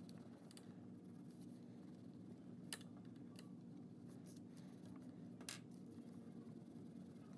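Faint scratching of a wax crayon rubbed back and forth on paper, pressed down hard while colouring, with two sharper ticks, one about a third of the way in and one about three quarters in.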